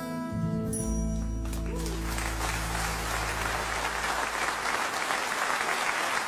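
The last chord of a song rings out with a low held note, fading over the first few seconds, as an audience starts applauding about two seconds in; the applause then goes on steadily.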